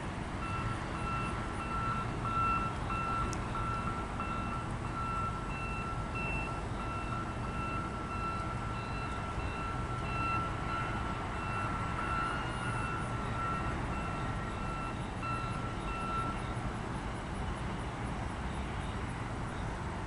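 A repeating high-pitched electronic warning beep, stopping near the end, over the steady low rumble of a train.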